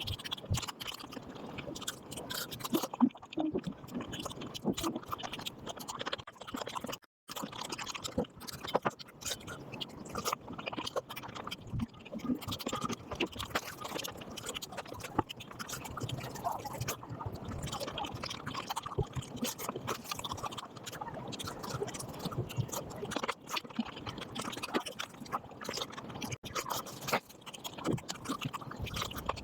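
Close-miked eating sounds sped up about five times: a rapid, dense stream of chewing, smacking and wet mouth noises. A brief gap about seven seconds in.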